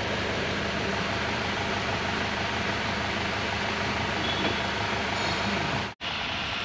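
Steady background hiss with a low hum, unchanging throughout, that cuts out for an instant near the end.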